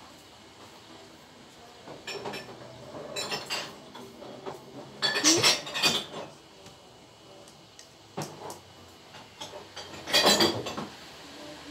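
Paintbrushes and paint pots clinking and clattering on a table in several short bursts, the loudest about five and ten seconds in.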